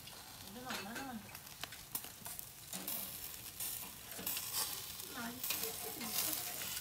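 Burger patties sizzling over charcoal on a wire grill grate, with sharp clicks of metal tongs against the grate.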